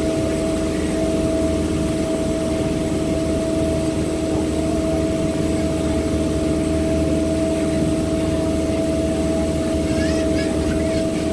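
A water taxi's inboard engine running at a steady cruising drone, a low rumble with a constant hum and a thin high whine over it.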